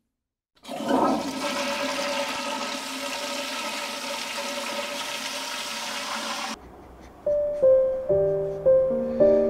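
A toilet flushing: a loud rush of water starting about a second in, cut off abruptly after about six seconds. Then a slow piano tune begins, single notes struck about one every half second.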